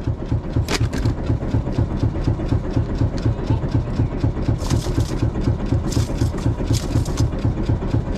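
Boat engine idling with a steady low pulsing rumble.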